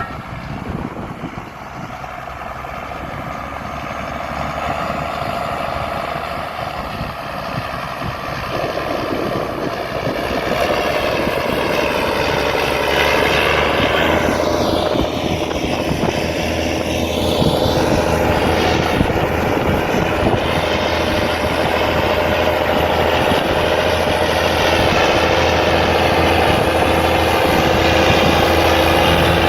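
Tractor engine working under load, growing steadily louder as the tractor approaches and passes close by, then staying loud with a steady engine note.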